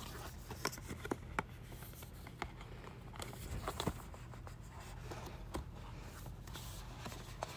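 Hands handling a cardboard retail box while trying to open it: scattered light clicks, taps and small scrapes of fingers on cardboard, over a faint steady low hum.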